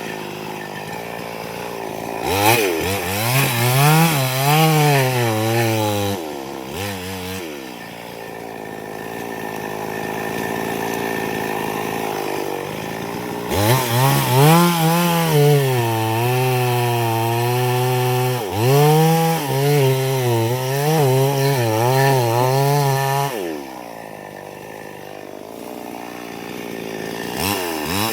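Chainsaw engine revving up and dropping back several times while cutting wood, its pitch wavering as the chain bites and bogs under load, with lower, steadier stretches near idle in between.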